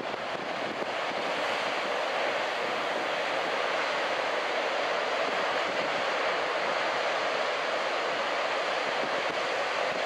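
Large ocean waves breaking and washing in: a steady rushing hiss of surf.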